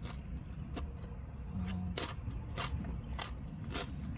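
A person chewing a mouthful of spicy sea-snail salad with noodles: a string of short, crisp crunches, about one every half second, over a low steady rumble.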